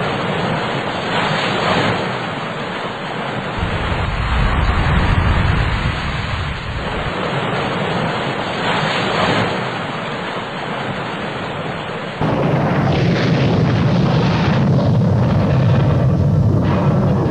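Loud, steady rushing noise with a heavy low rumble, like wind buffeting the microphone. The sound changes abruptly about twelve seconds in, and the low rumble grows stronger after that.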